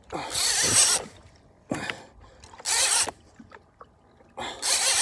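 Heavy conventional saltwater fishing reel being cranked in short bursts, about every two seconds, a whirring, ratcheting rattle of the reel's gears as line is wound in on a hooked fish.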